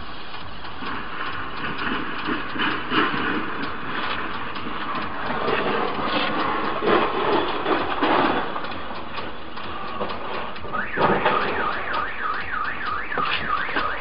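A jumble of rattling noise, loudest a little before halfway, then a car alarm starts about three-quarters of the way in: a rising-and-falling wail repeating about three times a second, heard from inside a car.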